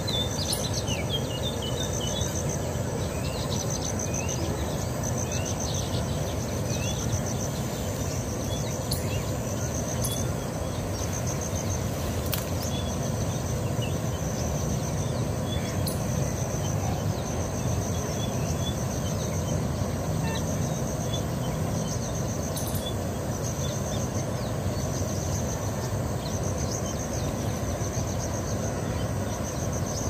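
An insect chirping in short, regular, repeated pulses, with scattered bird chirps, most of them in the first couple of seconds, over a steady low background rumble.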